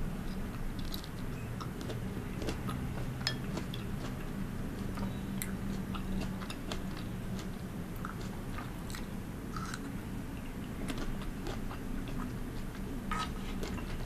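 Close-miked chewing and wet mouth sounds of a person eating spoonfuls of blueberries and fruit in liquid, with many small scattered clicks and pops. A steady low hum runs underneath.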